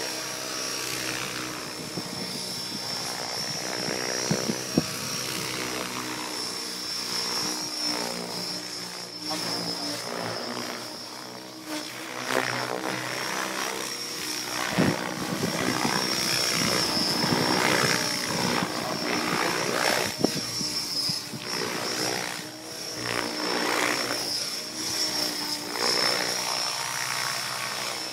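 Radio-controlled aerobatic helicopter flying. A steady high-pitched whine sits under rotor noise that shifts in pitch and swells and fades as it manoeuvres, loudest in the middle stretch.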